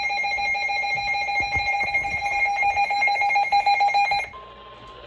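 A loud electronic ringing tone, pulsing rapidly, cuts off suddenly about four seconds in. Near the end a quieter single steady tone begins: the NOAA Weather Radio warning alarm tone that comes before a new warning message.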